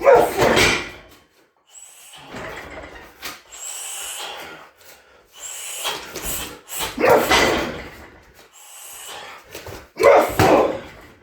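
Shin kicks striking a 60 kg heavy bag: hard hits at the start, about seven seconds in and about ten seconds in, with quieter sounds between.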